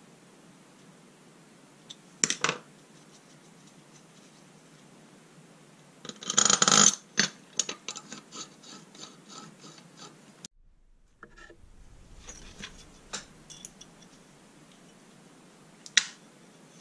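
Steel flat bars and small metal parts being handled and set down on a workbench: a clatter about two seconds in, a louder clatter around six seconds followed by a run of fading clicks, more light clicks later, and one sharp clink near the end.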